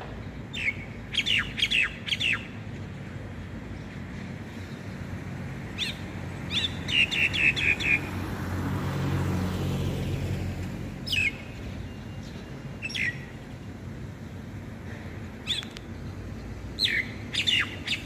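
Starling calling from an overhead wire in short clusters of sharp, falling whistled notes, with a run of quick repeated notes about six seconds in. A low rumble swells and fades midway.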